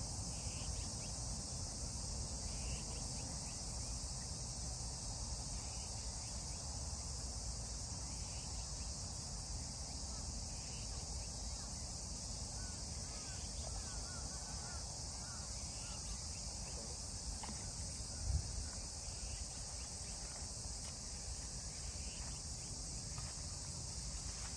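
Steady high-pitched chorus of insects such as crickets, with a low rumble of wind underneath. A single brief low thump sounds about 18 seconds in.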